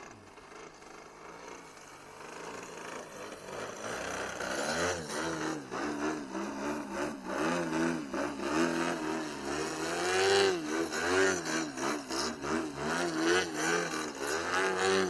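DA-120 twin-cylinder gas two-stroke engine on a large RC aerobatic plane in flight. It grows from faint to loud as the plane comes in, its pitch rising and falling with the throttle through the manoeuvres, then holds a steady note near the end as the plane hangs nose-up in a hover. The engine is pulling strongly after hand-tuned needle settings.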